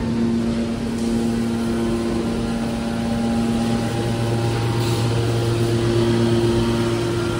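Machinery running steadily with a low hum of several steady tones; the mix of tones shifts about four seconds in, as if the load changes.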